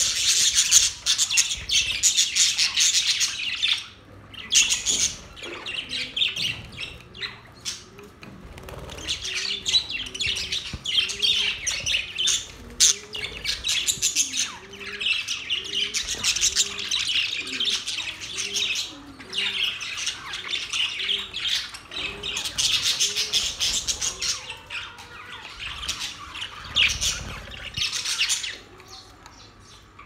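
A flock of budgerigars chattering, with many birds warbling and chirping at once. The chatter comes in long stretches broken by a few brief lulls.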